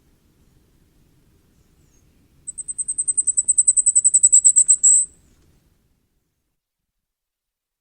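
Common firecrest singing: one fast run of very high, thin notes that grows louder toward a stronger final note, lasting about two and a half seconds.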